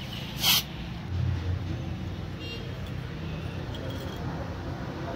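A short hiss from an aerosol spray can with a straw, about half a second in, over a steady low background rumble.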